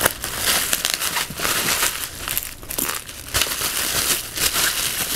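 Plastic bubble wrap crinkling and rustling in irregular bursts as it is cut open with scissors and pulled apart by hand.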